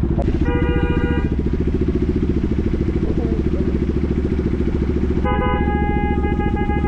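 Motorcycle engine running while riding, with car horns honking in greeting: a short honk about half a second in, and a long, held honk starting near the end.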